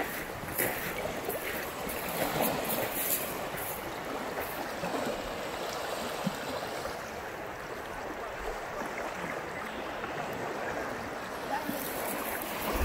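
River water flowing out into a lake, a steady rippling wash.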